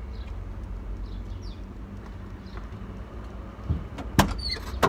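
Steady low rumble inside a parked car, with faint bird chirps in the first half. A few sharp knocks and clicks come near the end.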